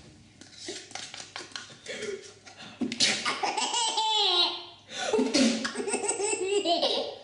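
A baby laughing hard, in long peals that get loud about three seconds in, pause briefly, and start again.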